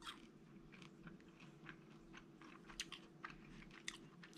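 Close-up chewing of deep-fried hornet larvae: faint, irregular crunches in the mouth.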